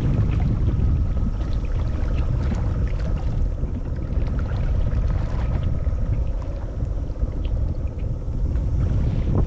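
Steady wind rumbling and buffeting on an outdoor microphone, with faint small splashes of water against shoreline rocks.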